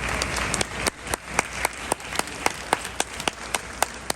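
Audience applauding, fading after about a second into one pair of hands clapping close by, about four sharp, even claps a second.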